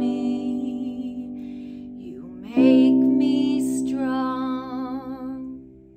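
A woman singing a slow children's song over sustained piano chords, her held notes wavering. A new chord and sung phrase come in about two and a half seconds in, then fade out near the end.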